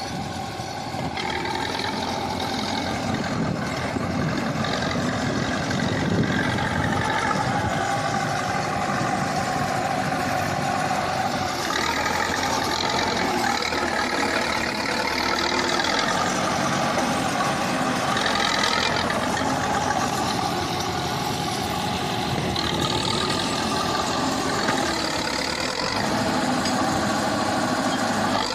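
KhTZ T-74 crawler bulldozer's diesel engine running continuously while working, its tone shifting a few times as the load changes.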